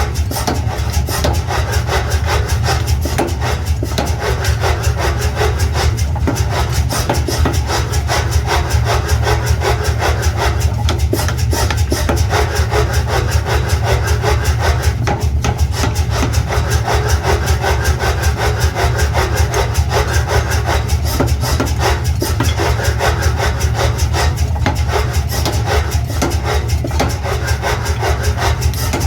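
Metalworking machinery running continuously, with a fast rasping clatter over a steady low hum.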